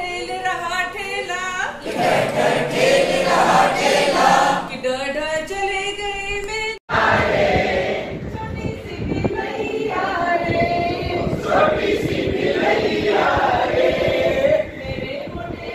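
A group of men and women singing a Hindi action song together in chorus. About seven seconds in the sound cuts out for a moment, then the group singing goes on with hand-clapping.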